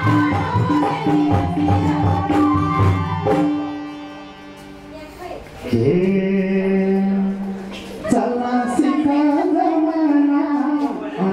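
Nepali live dohori folk music: a quick hand-drum rhythm with melody instruments dies down after about three seconds. A long held note follows, and from about eight seconds a voice sings over the band.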